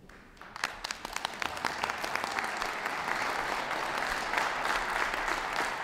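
Audience applauding: a few scattered claps about half a second in, building quickly into steady applause.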